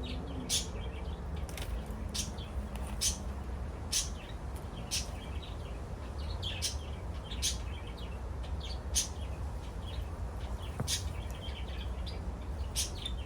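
A bird chirping: short, sharp chirps about once a second at uneven intervals, over a steady low rumble.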